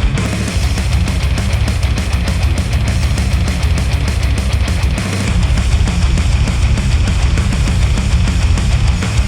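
Loud instrumental heavy rock music with fast, driving drums and a heavy bass, played back through a Sennheiser headphone and picked up by microphones at the earcup.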